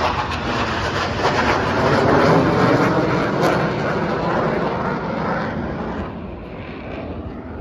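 A pair of fighter jets flying over: loud jet engine noise that is strongest two to three seconds in, then fades away over the last couple of seconds.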